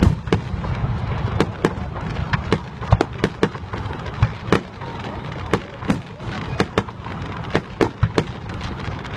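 Fireworks display: aerial shells bursting in an irregular run of sharp bangs, at times several a second, over a steady low rumble.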